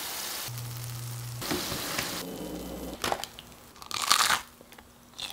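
Churros sizzling as they deep-fry in hot oil, then a few sharp crunching cracks around three and four seconds in.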